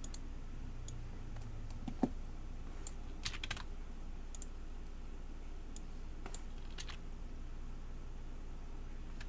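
Scattered clicks of computer keys, a few at a time, with a louder knock about two seconds in and a short cluster of clicks about a second later, over a steady low hum.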